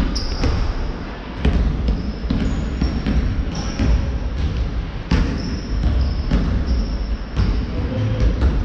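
A basketball bouncing on a hardwood gym floor in irregular thuds, with short high squeaks of sneakers on the floor, all echoing in a large sports hall.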